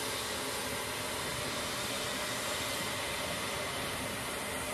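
Steady rushing whine of a C-17 cargo jet's turbines running, an even roar with faint steady tones and no breaks.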